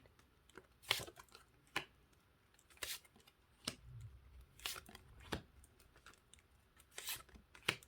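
Oracle cards being handled and laid down one by one on a table, a short crisp slap or snap about once a second.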